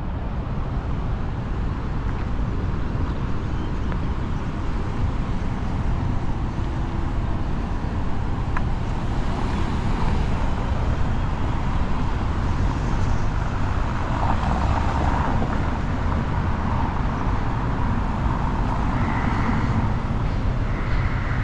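Downtown street traffic: a steady rumble of passing cars and engines.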